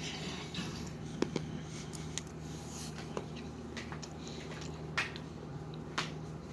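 Close-up mouth sounds of someone chewing a bite of orange-peel dark chocolate, with a few short sharp clicks about a second apart. A low steady hum runs underneath.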